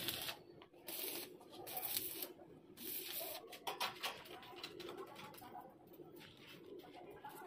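Welding torch tack-welding a stainless steel railing joint: short hissing bursts about once a second, several in the first four seconds, then it stops.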